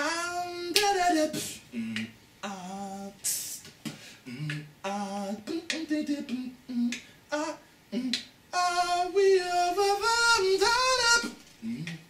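A man improvising a wordless vocal melody in sliding, changing pitches, broken into short phrases, with sharp percussive clicks between and under the phrases.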